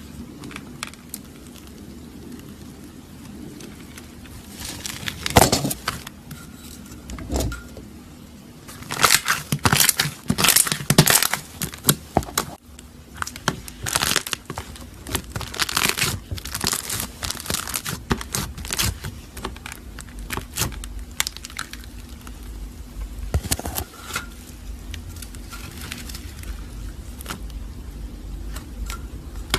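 Slime being pressed and squeezed by hand, giving sticky crackles and clicking pops in irregular clusters.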